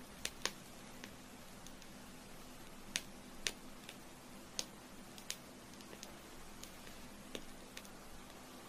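Burning candle giving off irregular sharp crackles and pops from the wick over a faint steady hiss, about a dozen clicks spaced unevenly.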